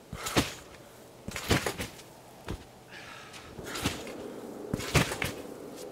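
Someone bouncing on a trampoline, one thud with each bounce, about once a second, five times, building up to a flip.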